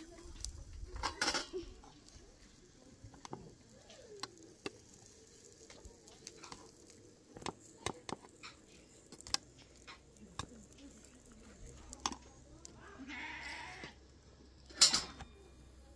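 Scattered knocks and clicks with an occasional faint bleat from livestock, and a sharp knock near the end that is the loudest sound.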